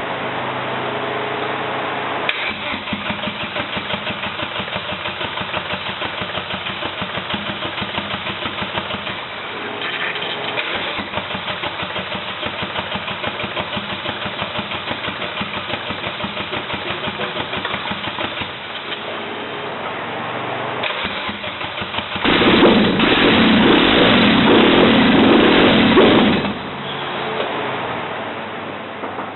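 Rebuilt Volvo T5 engine on E85 being cranked by the starter in a long run of rapid, even pulses at its first start after the rebuild. About 22 seconds in it catches and runs loudly for about four seconds, then drops back to a quieter sound.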